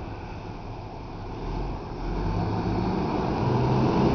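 Fire engine's diesel engine running as the truck pulls out of the station bay, growing louder about two seconds in as it accelerates.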